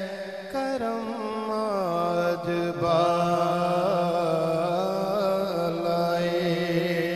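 Naat recitation: a man's voice singing long, drawn-out notes without clear words, the pitch sliding between held notes over a steady low hum.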